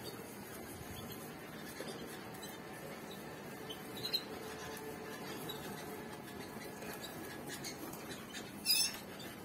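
Faint scratchy rubbing of fingers working cream into a canary's scaly legs, with a few faint canary chirps and one louder, short falling chirp near the end.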